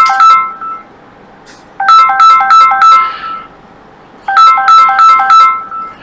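Mobile phone ringtone: a short melody of quick, beeping notes, repeating about every two and a half seconds.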